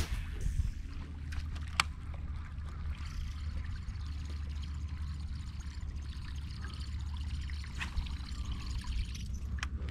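Water trickling and lapping around a kayak, with a steady low wind rumble on the microphone. There is a single sharp click about two seconds in.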